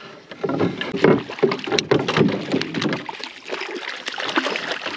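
Commotion in a canoe as a hooked brook trout is landed: a busy run of knocks, bumps and water noise that settles after about three seconds.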